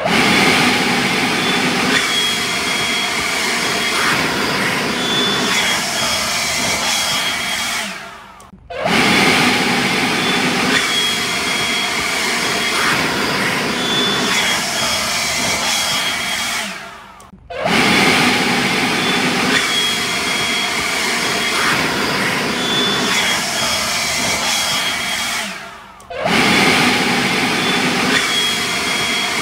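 Handheld leaf blower running steadily: a loud rush of air with a high motor whine. The sound fades out three times, about every eight and a half seconds, and each time comes back suddenly at full strength.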